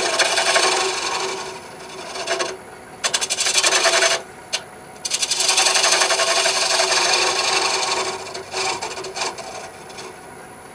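Straight hollowing tool cutting inside a spinning poplar hollow form on a wood lathe, a rasping scrape as it cleans up the bottom of the hollow. It comes in three long passes with short pauses, then a few brief touches near the end.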